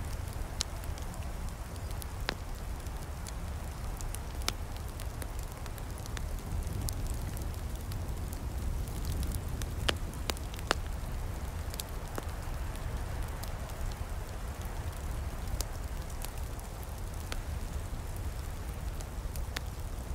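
Wood campfire crackling, with sharp pops at irregular moments over a steady low rumble.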